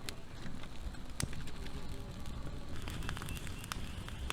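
Open fire crackling, with scattered sharp pops and clicks over a low, steady rumble.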